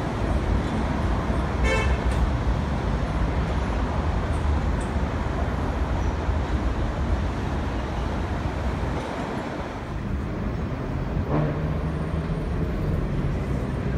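Elevated subway train rumbling steadily on the elevated track structure as it runs away from the platform, with one short horn toot about two seconds in. Near the end the sound gives way to a steadier low hum.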